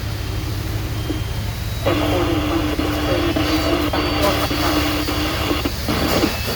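A fire truck's air horn sounds in one long, steady blast of nearly four seconds, starting about two seconds in, over a steady low rumble.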